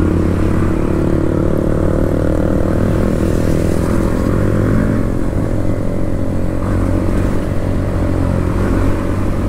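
Motorcycle engine running at a steady cruise, with wind noise rushing over the microphone.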